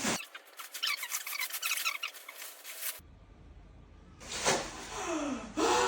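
Bubble wrap crinkling and crackling in a quick run of small clicks, then a short pause. Near the end comes a high squeal that slides down in pitch and then back up.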